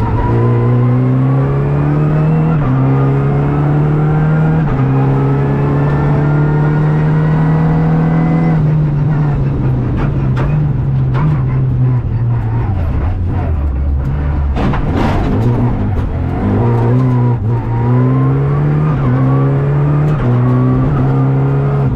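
Renault Clio Rally5's turbocharged three-cylinder engine at full throttle, heard inside the cabin, its pitch climbing through the gears with quick upshifts. About halfway it drops away as the car lifts off and slows, with a few sharp knocks. Then the pitch climbs again through several more upshifts.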